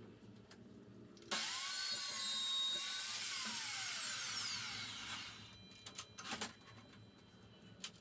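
Metal-cutting power saw starting suddenly about a second in, its motor whine rising and holding while it runs through steel bar stock, then winding down with a falling whine as it coasts to a stop. A few short knocks follow near the end.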